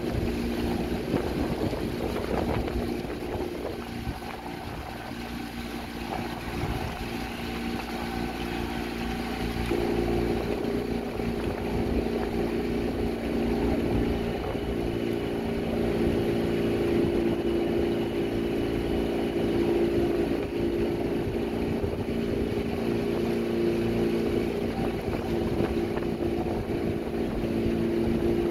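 Outboard motor of a small motorboat running steadily, a constant drone that grows a little louder about ten seconds in.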